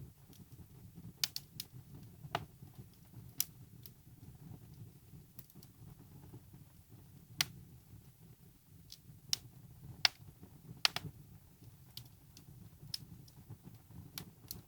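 Wood fire burning in a fireplace: sharp, irregular crackles and pops from the burning logs over a steady low rumble of the flames.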